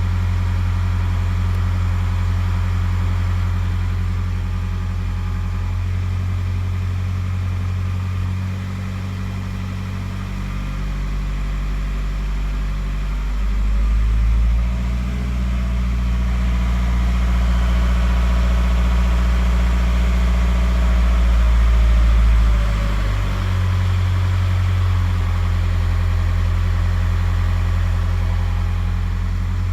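Skoda Octavia A5 1.9 TDI four-cylinder unit-injector (pump-nozzle) turbodiesel running, which the owner reports as knocking. It idles, then runs louder and higher for several seconds from about midway before dropping back to idle near the end.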